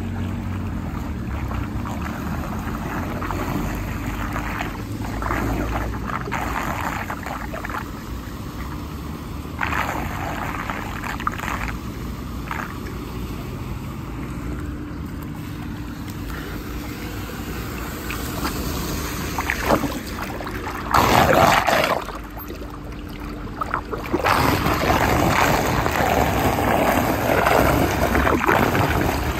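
Floodwater draining into a storm drain, swirling and gurgling. There is a brief louder rush about two-thirds of the way through, and the draining is louder over the last five seconds or so as the whirlpool forms.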